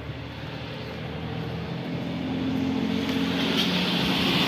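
A motor vehicle's engine running and getting steadily louder as it approaches, with road and tyre noise rising toward the end.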